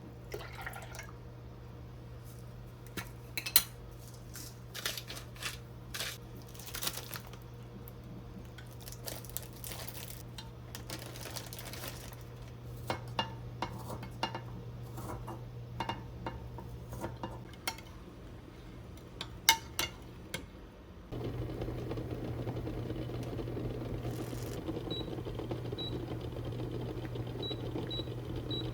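Dishes and utensils clinking and knocking sporadically in a kitchen. About two-thirds of the way through, a steady appliance hum starts abruptly, and a few faint short beeps sound near the end.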